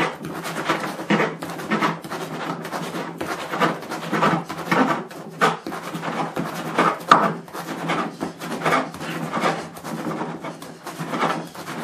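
A knife sawing through a crusty loaf of bread on a wooden cutting board: a run of repeated rasping strokes, with the blade now and then knocking on the board.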